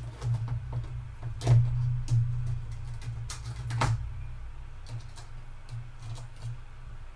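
Quiet background music with a steady low tone, broken by a few sharp clicks of plastic as the lid of a small plastic cup is pried off with steel forceps, the first about a second and a half in and two close together near the four-second mark.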